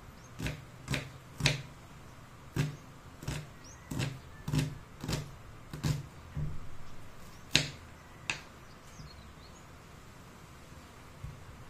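Kitchen knife chopping red onion on a wooden cutting board: about a dozen sharp knocks of the blade striking the board, unevenly spaced at roughly one or two a second. The knocks stop about eight seconds in.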